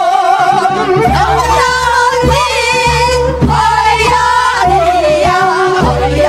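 A group of women singing a Korean folk song (minyo) together through microphones, holding long notes with a wide vibrato.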